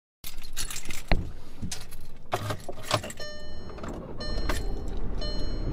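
A few clicks and knocks of handling inside a car, then the car's seatbelt warning chime sounding in short pulses about once a second from about three seconds in, because the driver's seatbelt is unfastened.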